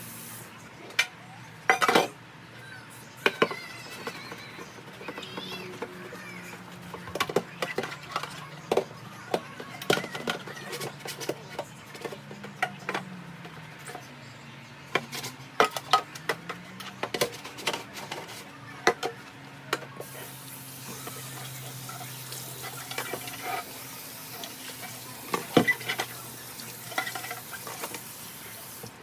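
Irregular clinks, taps and knocks of containers and dishes being handled and set down, over a low steady hum.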